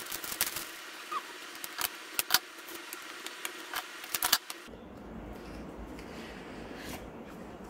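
Scissors clicking and snipping at the seal of a small cardboard box, mixed with taps and rustles of the box being handled. The clicks come thickly through the first half and thin out after about four and a half seconds.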